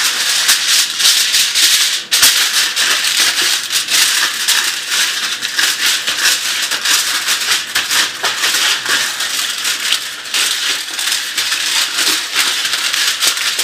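Aluminium foil crinkling and rustling as it is pressed and shaped into a cake pan: a dense, continuous crackle with short pauses.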